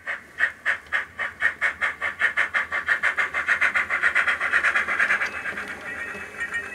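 Sound-decoder steam chuff from a model steam locomotive, the exhaust beats quickening from about three a second to about ten a second as the locomotive is throttled up and speeds away, then blurring together near the end.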